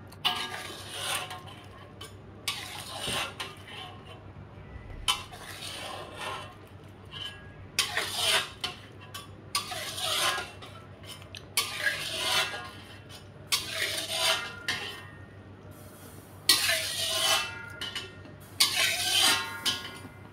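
A metal ladle and spatula scraping and knocking against a wok in repeated strokes, one every second or two, as mushroom soup is scooped out into a plastic bowl. Some strokes have a short metallic ring.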